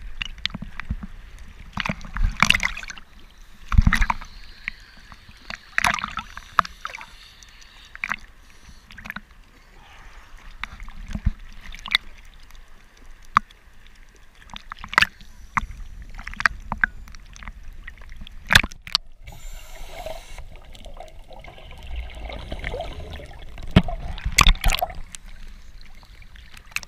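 Small sea waves sloshing and splashing against a waterproof action camera at the water's surface. Irregular sharp slaps come over a low rumble of water, with gurgling as the housing dips under now and then.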